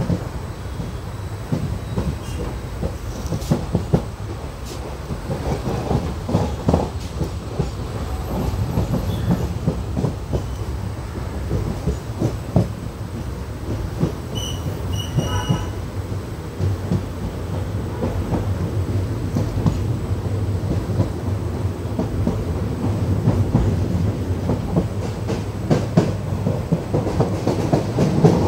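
Indian Railways Janshatabdi Express passenger coach running at speed, heard from its open door: a steady low rumble of wheels on rail with repeated clickety-clack clicks over the rail joints.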